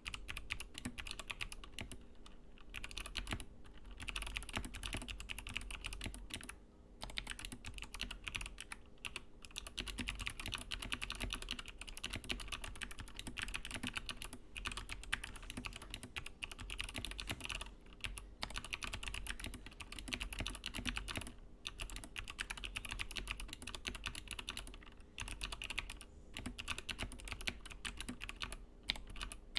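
Mechanical keyboard fitted with clicky Kailh Box Pale Blue clickbar switches being typed on fast and continuously, a dense run of sharp clicks with a few brief pauses.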